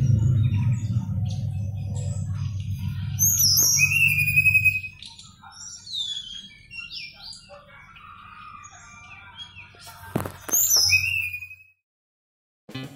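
Caged tledekan bakau songbird singing: quick runs of high chirps and clear whistled phrases, with background music fading out over the first few seconds and a few brief rustles about ten seconds in.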